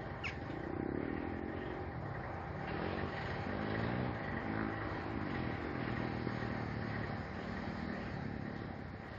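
Diesel freight locomotive's engine running while the train stands, its note rising and falling several times as the revs change. A short high falling whistle sounds near the start.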